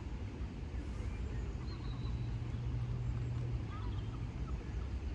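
Steady low outdoor rumble, with a low hum that swells for a couple of seconds in the middle and a few faint bird chirps.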